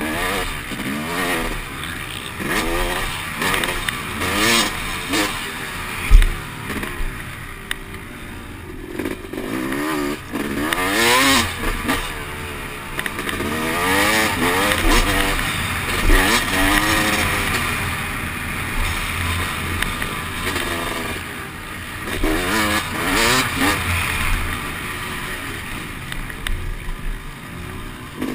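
Dirt bike engine revving hard and dropping off again and again as it is ridden around a motocross track, heard from the rider's helmet. There is a sharp thump about six seconds in.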